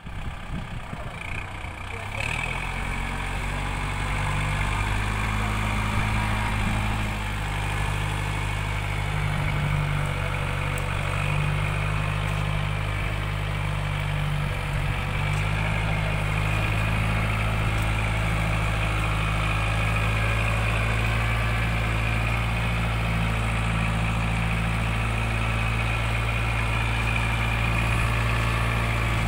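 Kubota MU4501 tractor's four-cylinder diesel engine running steadily under load while pulling a mounted plough through sandy soil, its note settling about two seconds in.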